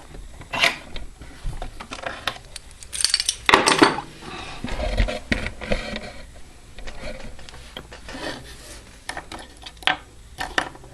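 Small metal clicks, taps and rubbing as a mortise lock cylinder and lock picks are handled, with a louder scraping clatter about three and a half seconds in.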